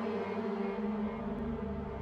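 Dark, ambient background music: held low tones with a deep rumble that swells about halfway in.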